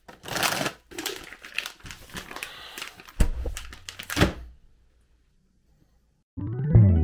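Irregular rustling and crinkling with sharp knocks, the two loudest thumps about three and four seconds in, like things being handled at close range. It cuts off to silence, and music starts just before the end.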